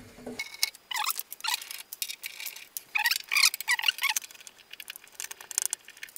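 Screws being turned out of the metal case of a Commodore PC 20 III computer with a screwdriver. It comes as short bursts of squeaky scraping and clicks, a few turns at a time.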